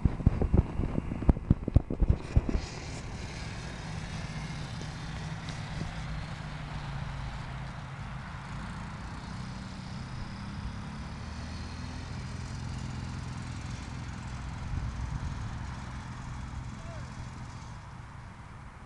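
Small children's quad bike engine running steadily with a low hum, fading toward the end as the quad moves off. Heavy knocks and thumps on the microphone fill the first couple of seconds.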